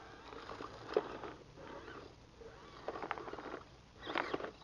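Small 1:18-scale RC rock crawler's tyres and hard plastic body scraping and clattering over rocks and driftwood, in bursts of clicks about a second in, around three seconds and again near the end.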